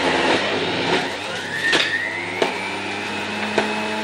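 Motor of an electric juicing appliance running at high speed while making carrot and pomegranate juice. Its pitch rises about a second in, and three sharp knocks break through the hum.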